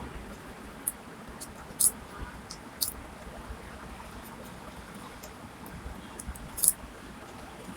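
Crisp snacks being bitten and chewed: scattered sharp crunches, the loudest about two seconds in and near the end, over a steady faint hiss.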